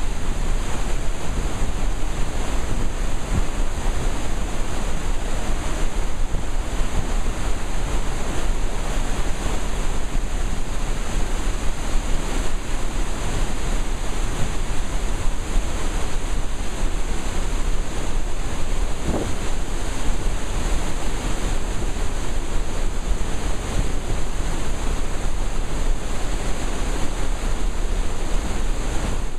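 Flood releases from Oahe Dam's outlet tunnels churning and spraying in the concrete stilling basin: a steady, unbroken rush of water, with wind buffeting the microphone.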